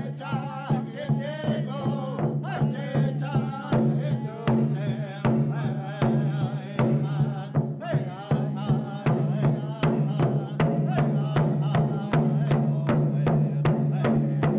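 Outro music: a steady, evenly paced drumbeat under a wavering sung melody, with a low sustained hum beneath.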